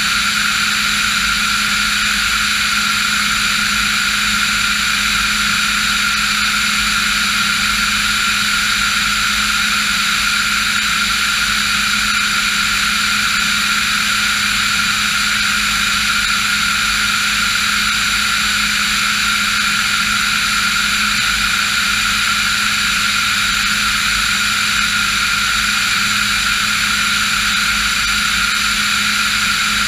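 Diamond DA40 NG's Austro AE300 turbo-diesel engine and propeller running steadily in cruise, heard inside the cabin as an even, unchanging drone of several steady tones.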